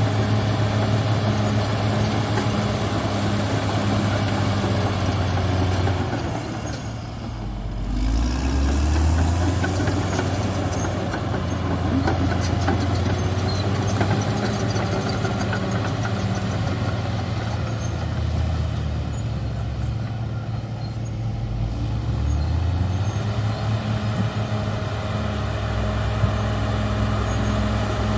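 Cat D6R XL bulldozer's diesel engine running under load. Its revs drop about six seconds in and climb back a couple of seconds later, and they sag again around twenty seconds before rising.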